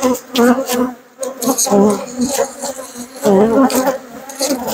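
Honey bees buzzing close to the microphone, the buzz wavering in pitch and swelling and fading as individual bees fly past. They are a defensive colony disturbed by having its hive opened.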